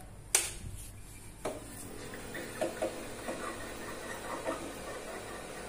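A switch clicks sharply about a third of a second in, then about a second later the Star Lite moving-head beam light starts up: a steady fan-and-motor hum with light ticks as it powers on.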